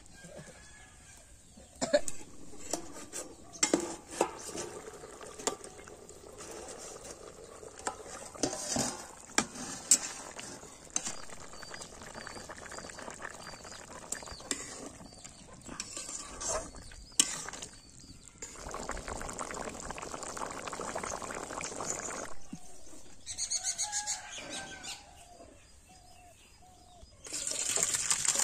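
Green papaya and chicken curry cooking in a metal pan over a wood fire, with scattered knocks of metal utensils against the pan. In the last second or so the thick curry is poured from the pan into a steel bowl, a louder wet pour.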